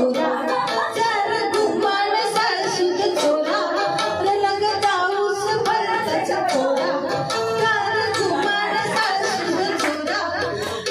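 A woman singing a song into a microphone over amplified backing music with a running percussion beat.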